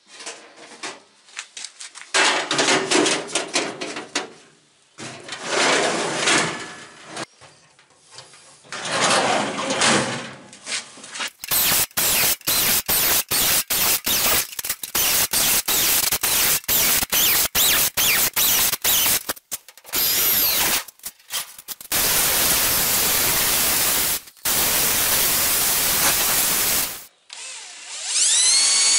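Cordless drill boring through the sheet steel of a filing cabinet. First come irregular bursts, then many short bursts in quick succession and a long steady run of drilling. Near the end the motor whines up to speed.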